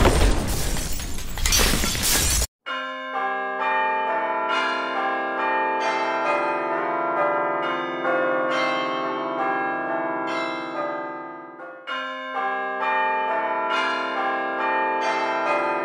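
A loud crashing, shattering sound effect that cuts off sharply about two and a half seconds in. It is followed by slow bell-like chiming music, its ringing notes struck one after another and overlapping, with a brief dip near twelve seconds in.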